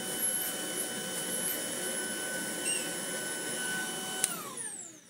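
Tineco A10 Hero cordless stick vacuum running with its manual filter-cleaning tool fitted, drawing the dust off a filter as it is turned by hand: a steady whine over a rough hiss. About four seconds in there is a click as it is switched off, and the motor winds down with a falling whine.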